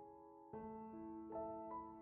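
Soft piano background music: a new chord sounds about half a second in, followed by single notes.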